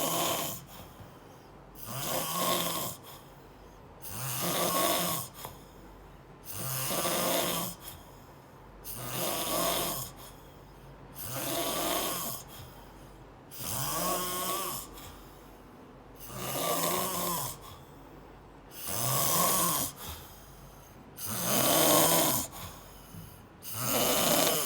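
Snoring: a steady run of about ten snores, each lasting about a second, with a low buzzing rattle. They come at an even pace of one every two and a half seconds, with quiet breathing gaps between.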